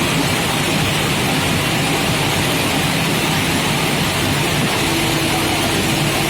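Steady, loud industrial running noise with a low hum, from an induction melting furnace in operation; a faint steady tone joins about five seconds in.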